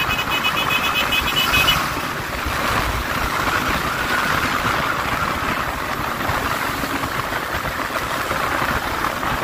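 Yamaha Lander 250's single-cylinder engine running at a steady cruise, mostly buried under wind rushing over the microphone at road speed.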